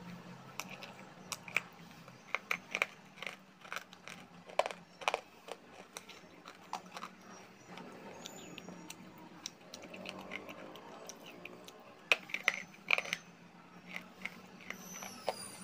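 Sharp crunching and cracking as a person bites into and chews hard lumps of dry grey clay. The crunches come in irregular clusters with short gaps, the loudest bunch about twelve seconds in.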